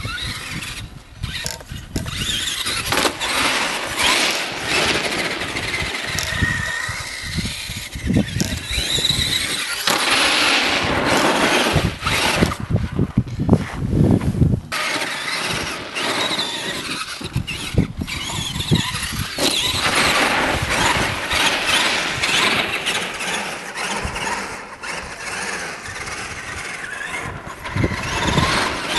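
Traxxas Summit electric RC truck driving on ice and snow, its motor and drivetrain whining and rising and falling in pitch with the throttle, in surges that come and go.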